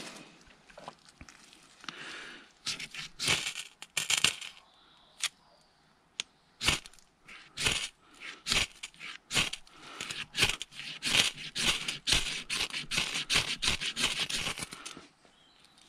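Knife spine scraped hard down a ferro rod in a run of short, rasping strikes, a few at first and then about two or three a second, throwing sparks into a dry tinder bundle. It is a fire-lighting attempt that fails to take.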